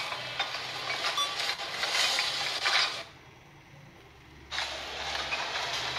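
Plastic garbage bags being handled: rustling with light clinks from the contents. The sound drops away for about a second and a half partway through.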